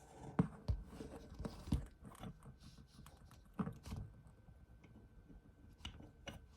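Scattered light clicks and taps of Glock 21 Gen 5 pistol parts being handled as they are taken out of the slide during field-stripping, a few louder ones in the first four seconds and fainter ones later.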